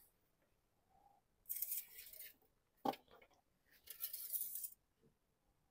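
Engine oil dipstick being wiped with a rag and handled: two short swishes about two seconds apart, with a sharp click between them.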